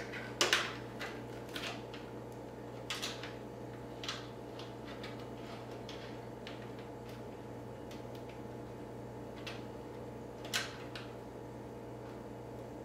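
Scattered light clicks and taps of cables and plastic connectors being handled inside a computer case during cable management, several in the first few seconds and a sharper one about ten seconds in, over a steady electrical hum.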